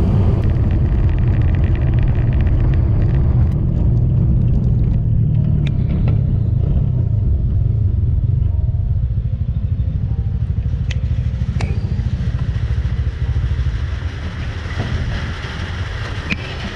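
Motorcycle running on the move, a deep steady rumble that gets somewhat quieter over the last few seconds, with a few faint clicks.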